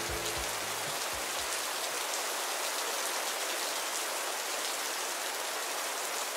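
Steady rain ambience, an even hiss of falling drops. The last low bass notes of the music die away in the first second and a half, leaving the rain on its own.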